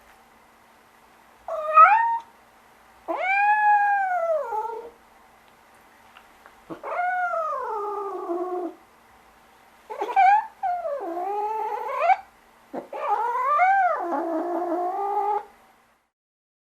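An animal calling five times in long, drawn-out wails that rise and then fall in pitch, with short pauses between calls.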